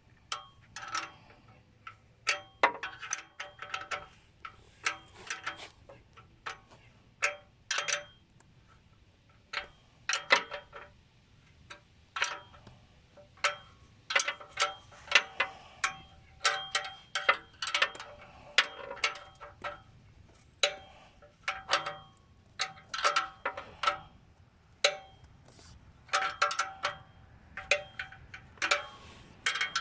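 Hand tools clinking on the muffler clamp and exhaust while its nuts are tightened: irregular sharp metal clicks in short runs with pauses, each ringing briefly like struck pipe.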